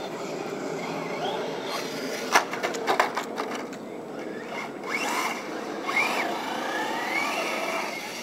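Radio-controlled Traxxas Slash truck driving: its electric motor whine rises and falls with the throttle over a steady rough running noise. A quick run of sharp clacks comes about two to three seconds in.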